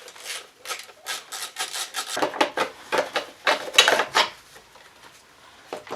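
Rapid rasping, clicking strokes of a spanner working the bolts of a scooter engine's fan shroud, coming in quick runs for about four seconds and ending with a single click near the end.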